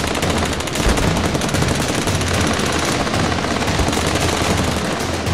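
Popcorn kernels popping in a buttered frying pan: a dense, rapid crackle of many small pops that keeps up at an even pace.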